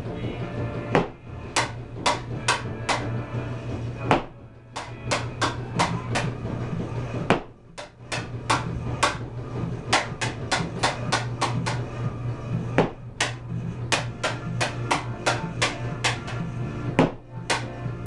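A hockey stick blade tapping an orange plastic ball-hockey ball in quick freestyle stickhandling and juggling, a string of sharp clacks about two to three a second. The clacks break off briefly twice.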